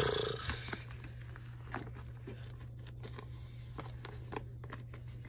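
Faint rustling and light clicks of plastic photocard sleeves and binder pages being handled, with a couple of slightly louder ticks.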